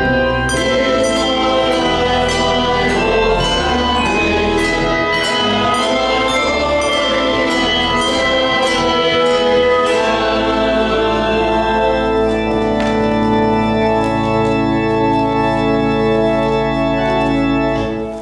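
Church organ playing, with moving notes over a pedal bass, then settling on a long held chord from about halfway through that is released right at the end.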